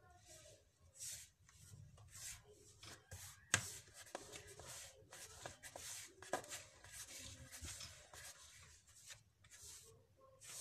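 Hands rubbing and squeezing flour into ghee in a plastic bowl for dough: faint, irregular swishing rubs, with a sharp knock about three and a half seconds in and another about six seconds in.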